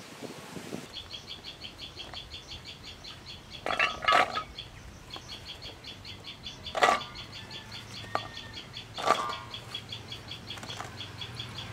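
Handfuls of cut taro stolons dropped into a stainless steel bowl: three separate clattering drops, spaced a few seconds apart. A fast, high-pitched pulsing chirr runs steadily behind them.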